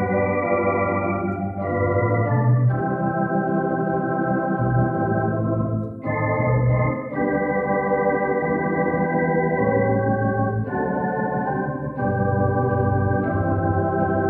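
Church organ playing a postlude: slow, sustained chords that change every second or two.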